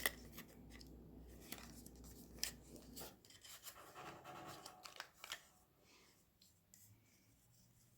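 Faint handling sounds of a small packaged item being opened: scattered light clicks and rubbing, dying away about three seconds before the end.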